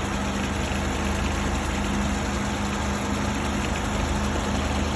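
Car engine idling with the air conditioning on and the engine's cooling fan running: a steady, even hum with no change.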